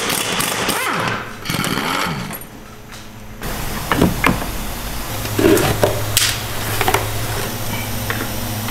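Hand ratchet working on engine-mount bolts under a car while the worn mount is taken out, then scattered clunks and knocks of metal parts being handled. A steady low hum joins about five seconds in.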